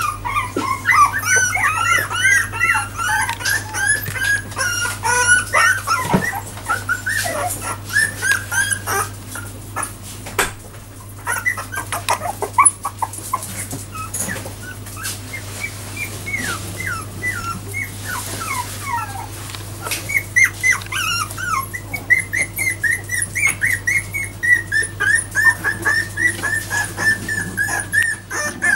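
Four-week-old Jack Russell Terrier puppies whimpering and squeaking, many short high calls overlapping, becoming a near-continuous string of cries in the last few seconds. A steady low hum runs underneath.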